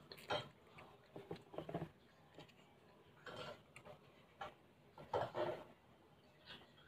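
Eating sounds: a mouthful of Samyang Buldak noodles being chewed and chopsticks stirring and tapping in the paper noodle cup, in short separate bursts about a second apart.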